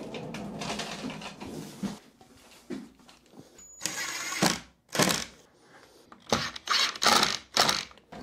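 Cordless Ryobi impact driver run in several short bursts, driving screws into the wall, after a rustling scrape in the first couple of seconds.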